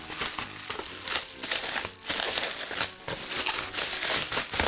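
Bubble wrap crinkling and rustling in irregular crackles as it is pulled off a boxed vinyl figure by hand.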